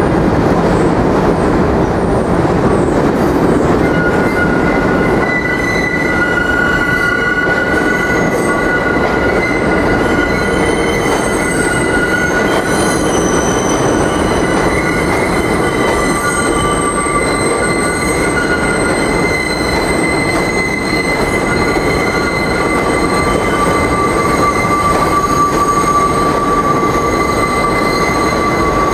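New York City subway train's steel wheels squealing as it takes a curve, over a steady rumble of wheels on rail. From a few seconds in, several high squealing tones come and go and overlap.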